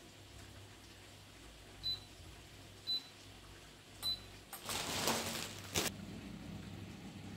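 Gorenje air fryer's touch-control panel beeping three times, about a second apart, as the temperature and time are set. About four and a half seconds in, its fan starts with a rush of air and a click, then keeps running with a steady low hum.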